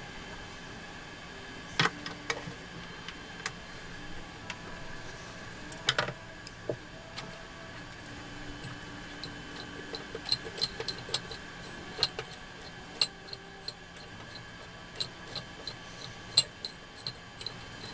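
Irregular clicks and light knocks, thicker in the second half, with sharper knocks about 2, 6, 12 and 16 seconds in, over a faint steady hum.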